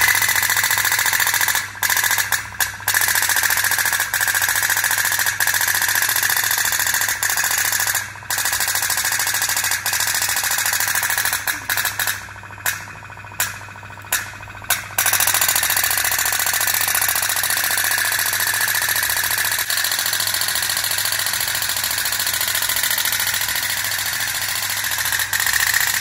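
Toy boats running in a metal basin of water, a battery-powered toy warship with a small DC motor beside a tin pop-pop steam boat: a steady, rapid mechanical buzz with a low hum under it. It cuts out briefly several times, most often about halfway through.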